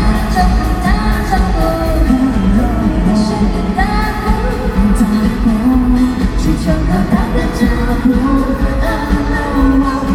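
Live Mandopop band playing with a singing voice over it and a heavy, steady bass.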